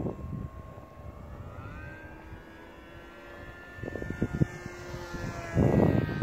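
Motor and propeller of a 3D-printed RC Me-109 model airplane whining in flight, its pitch rising about one and a half seconds in and then holding steady. Wind gusts buffet the microphone, loudest near the end.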